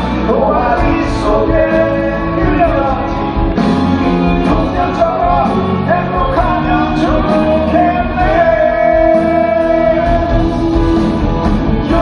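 Live band performing a pop-rock ballad, with male voices singing over keyboards, guitars and drums. The singer holds one long note about two-thirds of the way through. Concert-hall reverberation runs under the whole performance.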